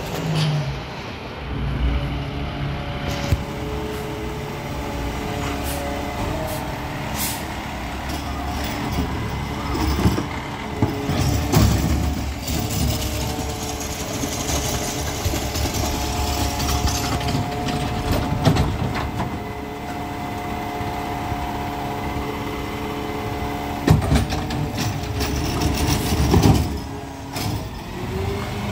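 Peterbilt 520 McNeilus ZR garbage truck running close by, its engine steady, with air brakes hissing. A couple of loud knocks come near the end.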